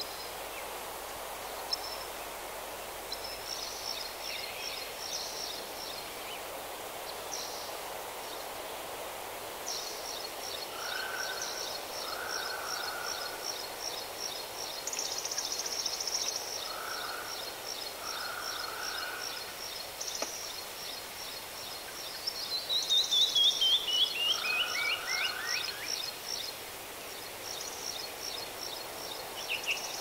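Songbirds singing over a steady background hiss: strings of rapid high repeated notes run through most of it, with a few shorter lower calls. About 22 seconds in comes the loudest song, a quick run of notes falling in pitch.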